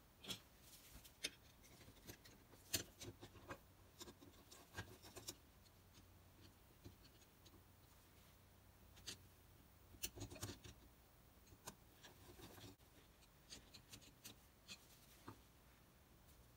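Faint, scattered small metallic clicks and short scrapes of a screwdriver turning screws in a Stanley No. 5 hand plane's frog as the parts are handled during reassembly. The ticks cluster in two busier stretches, near the start and around the middle.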